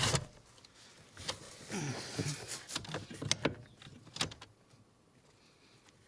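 Irregular clicks, knocks and short scrapes of parts being handled and fitted at a car's steering column, busiest in the middle and dying away near the end.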